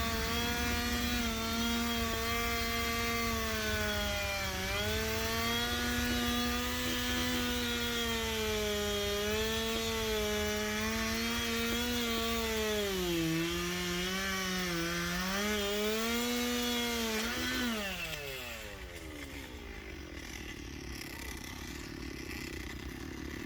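Husqvarna 371 XP two-stroke chainsaw running at high revs and cutting wood, its pitch dropping several times as the chain bogs in the cut. About 17 seconds in the engine is let off and its pitch falls away as it winds down, leaving a much quieter background.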